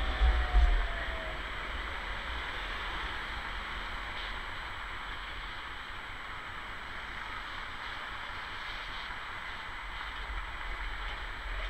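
Street ambience at a tram junction. A low rumble fades away in the first second, then a steady traffic hum follows, and an approaching articulated tram grows slightly louder near the end.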